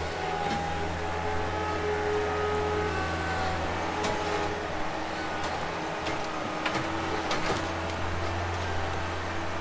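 Diesel engines of a wheel loader and a skid steer running steadily as the machines work a load of logs and brush, with a few sharp cracks a little past the middle.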